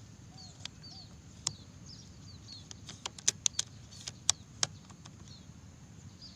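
Small birds chirping over and over in short, high, down-slurred notes, with a few faint low curved calls near the start. Several sharp clicks break in, one about one and a half seconds in and a cluster between about three and four and a half seconds in.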